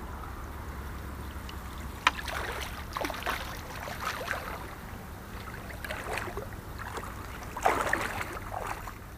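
Water splashing and sloshing as an aluminium landing net is moved through the river and lifted out, water running off its mesh; a string of irregular splashes, the longest and loudest near the end.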